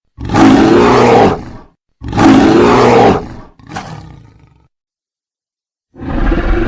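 Creature roar sound effects for the 'walrus dog' cryptid, built from animal calls such as a sea lion: two loud roars of about a second and a half each, a shorter fainter one, then another roar starting near the end.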